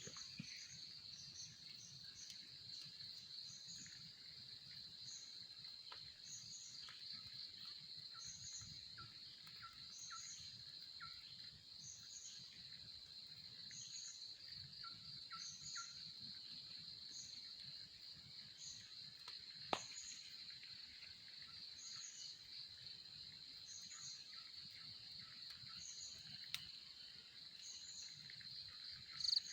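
Forest insects keep up a steady, shrill high-pitched trill. A higher chirp repeats about once a second over it, with faint bird calls now and then and a single sharp click about twenty seconds in.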